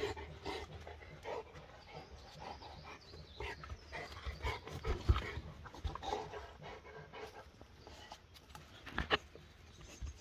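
Rottweiler panting and sniffing as it noses and bites at a sawn log stump, with irregular scrapes and knocks against the wood, one sharp knock about five seconds in.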